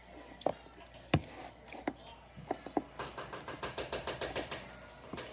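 Small plastic slime containers being handled and set down: scattered sharp taps and knocks, one louder about a second in, then a quick run of light clicks from about three seconds in.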